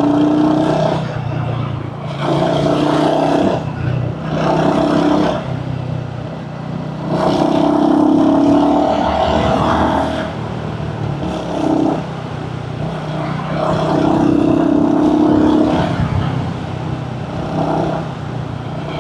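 Royal Enfield Hunter 350's single-cylinder engine running under way, heard on board with wind noise. The engine note swells and eases several times as the throttle is opened and closed.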